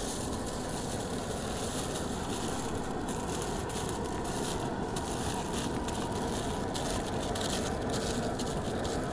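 Aluminium foil crinkling and rustling in short irregular bursts as it is folded around the rims of clay pots, over a steady rushing noise.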